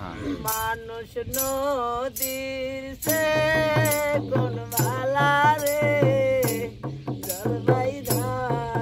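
A man singing a Bengali folk song, accompanied by a steady beat of sharp strokes on a small hand-played two-headed barrel drum (dhol).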